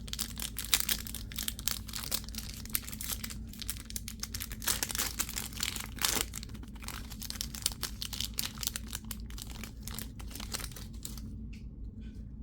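Plastic wrapping crinkling and rustling in close handling, a dense stream of crackles that dies down about eleven seconds in.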